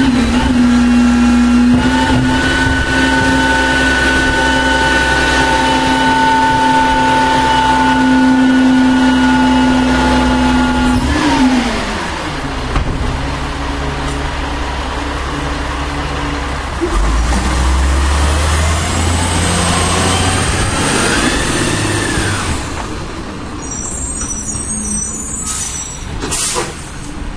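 Diesel engine of a 1996 Volvo WX64 garbage truck held at steady high revs, then dropping away in pitch about 11 seconds in. It then runs lower with a deep rumble, a brief rising-and-falling whine and a short hiss near the end.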